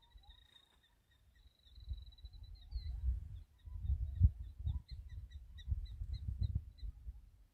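Birds calling: a thin high whistled note held for nearly three seconds, then a run of short high notes about three a second, with fainter lower warbling calls between. An uneven low rumble on the microphone, strongest in the second half, is the loudest sound.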